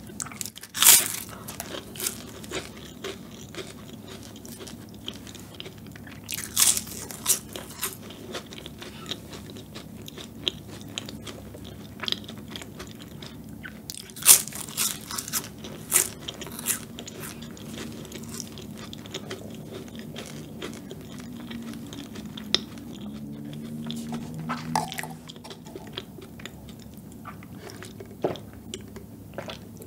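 Flaky pastry tart shell crunching sharply as it is bitten several times, with steady chewing in between, close to the microphone.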